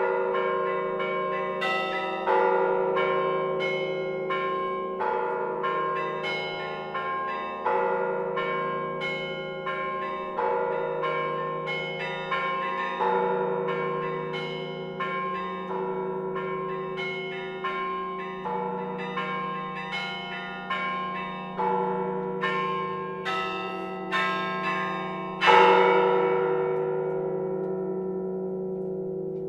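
Church bells ringing: a steady run of strokes on bells of different pitches, each ringing on under the next. The loudest stroke comes near the end and rings away slowly.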